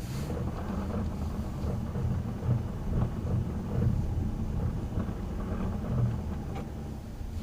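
Car engine running under heavy throttle with the tyres spinning in packed snow as the car, stuck on a snowy hill, is worked back and forth to get grip. It is a steady low rumble.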